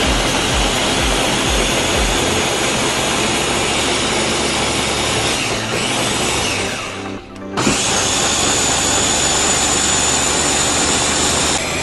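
Personal blender motor running hard as it purées orange pieces with peel, oil, sugar and eggs into cake batter. The motor cuts out briefly about seven seconds in, then starts again with a steady high whine.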